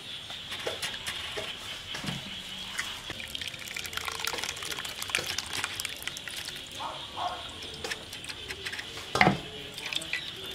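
Coconut milk trickling and dripping as freshly grated coconut is squeezed by hand and the milk strained through a mesh sieve into a steel pot, with small wet clicks and one sharp knock about nine seconds in.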